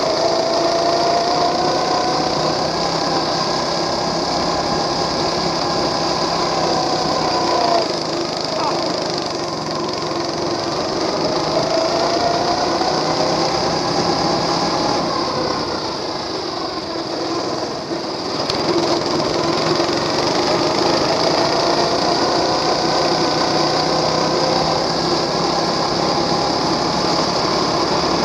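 Small gasoline engine of a motorized wagon go-kart running hard under load. Its pitch climbs as the kart accelerates, drops about eight seconds in and again around sixteen to eighteen seconds as the throttle eases, then climbs again.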